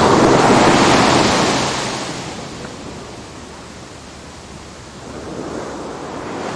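Ocean surf: the wash of breaking waves, loud at first, dying down to a low hiss midway, then building again near the end.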